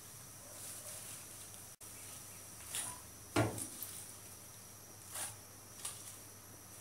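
Pumpkin shoots tipped from a plastic colander into a pot of boiling broth: a few faint, soft knocks and rustles, the loudest about halfway through.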